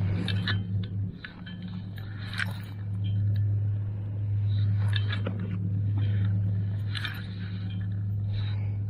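A boat engine droning steadily and low, with scattered light clicks and clinks over it.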